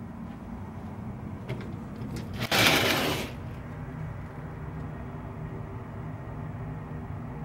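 A short, loud rustling swish lasting under a second, about two and a half seconds in, after a few light clicks, over a steady low room hum.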